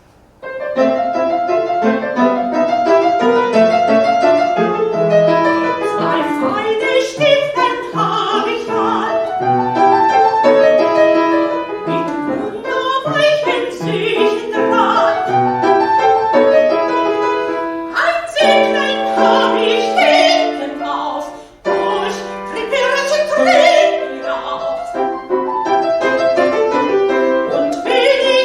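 Piano and soprano voice performing a classical art song, the music starting about half a second in and running on continuously with quick-moving piano notes.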